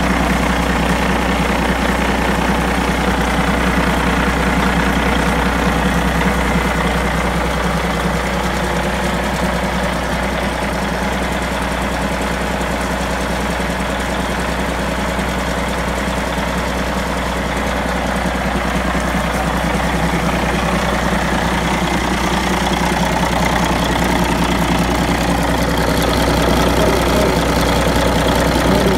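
Mitsubishi S6B5-MTK2S turbocharged straight-six marine diesel running steadily on a test stand.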